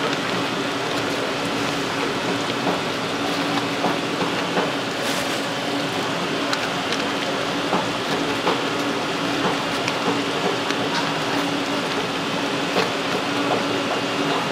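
Steady hiss of fish-market background noise with a low steady hum under it, and scattered light taps and rustles as shredded garnish is spread on a plate.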